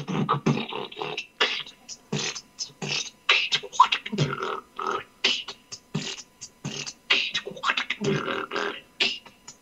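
Beatboxing: a quick, rhythmic run of mouth-made drum sounds, low kick-like thuds mixed with sharp high hiss and click strokes.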